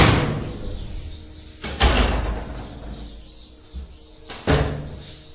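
Panelled wooden cupboard doors of a built-in wall cabinet banging shut three times, each knock with a short ring-out, the first the loudest.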